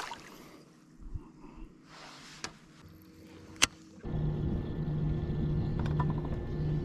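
Quiet handling knocks and one sharp click, then from about four seconds in a steady electric hum from the bass boat's trolling motor running.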